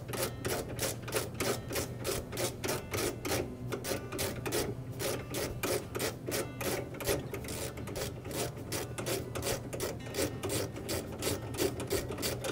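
3/8 nut driver turning out the refrigerator's roller and leveling bolt: a steady run of short clicks, about three to four a second, as the handle is worked round and round.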